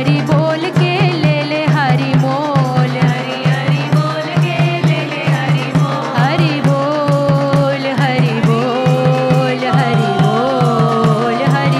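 Devotional kirtan: voices singing a melodic chant over a fast, steady hand-drum rhythm.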